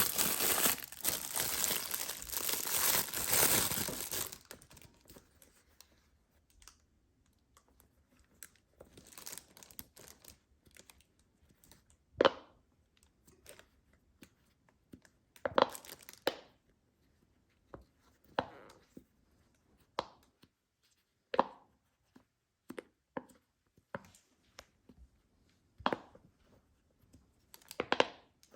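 Plastic packaging being torn open and crinkled for about four seconds, then scattered short sharp pops and clicks, one every second or two.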